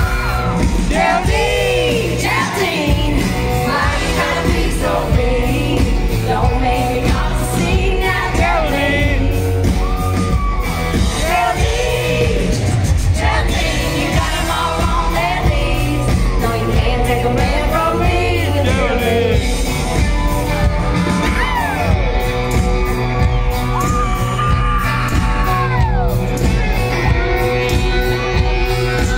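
Live country band playing a song with a lead vocal, heard from within the audience in a large hall, with some shouts and whoops from the crowd.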